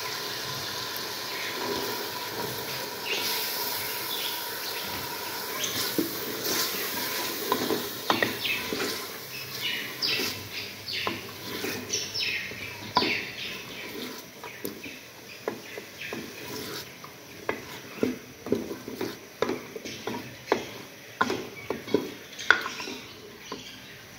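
Green chickpeas tipped from a plastic colander into sizzling masala in a metal pot, then a wooden spoon stirring them through with potato pieces. The stirring gives frequent irregular knocks and scrapes of the spoon against the pot, growing busier about a third of the way in.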